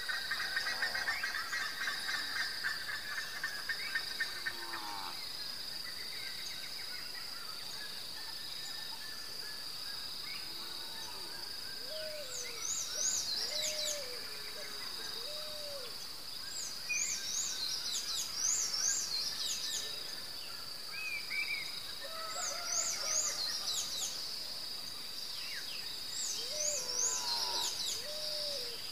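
Night-time outdoor ambience: a steady high chirring of insects throughout, with repeated short low calls and bursts of high chirps from night animals coming and going.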